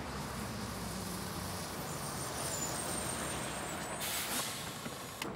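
City transit bus running as it drives up and pulls in to the curb. About four seconds in, a short sharp hiss of its air brakes.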